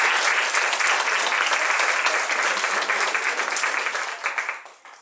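An audience applauding, a dense steady clapping that tapers off near the end.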